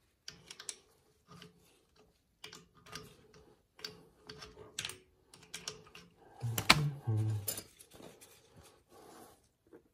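Gloved hands working the oil filter canister on a heating-oil line, opening it to change the filter: scattered small clicks, taps and handling noises, with a sharper click about two-thirds of the way through.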